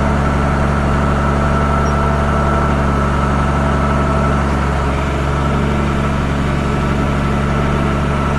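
Mercedes Unimog U1500's diesel engine running steadily, a constant low drone with a thin high whine over it.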